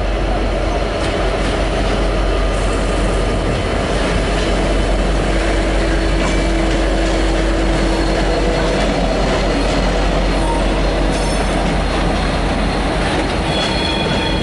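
V/Line N-class diesel-electric locomotive and its carriages passing slowly, engine running steadily, with wheels squealing and clicking over the rail joints and points.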